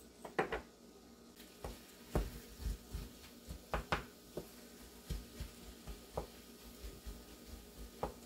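Wooden spoon stirring chopped vegetables in a non-stick skillet: irregular soft knocks and scrapes against the pan.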